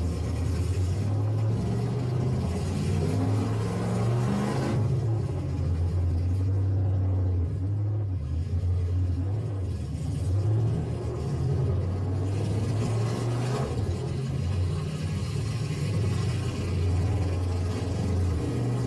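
Demolition derby pickup truck engines running in the arena, a steady low rumble that swells louder twice, about two to five seconds in and again about thirteen seconds in.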